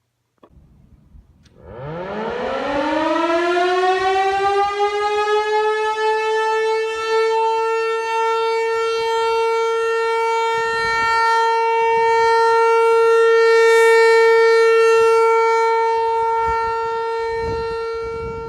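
Outdoor tornado warning siren winding up, rising in pitch over a few seconds, then holding one loud steady tone: the steady alert signal of a routine siren test.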